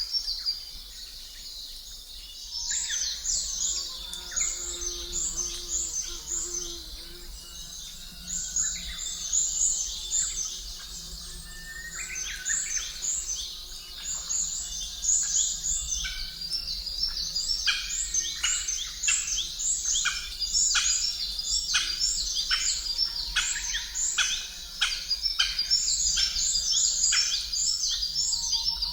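A chorus of many small birds chirping and twittering, their quick high chirps overlapping without pause and growing busier about halfway through, over a faint steady low hum.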